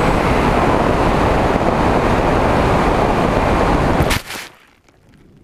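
Loud rush of wind across an onboard camera on an FPV flying wing in flight, mixed with the whine of its Nova 2206 brushless motor and propeller, the pitch gliding slightly. The noise stops abruptly about four seconds in with a short crackle, leaving only a faint hiss.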